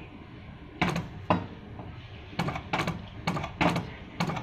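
About seven short, sharp clicks in uneven succession, from buttons being pressed on the control panel of a Brother LBH-1790 buttonhole sewing machine.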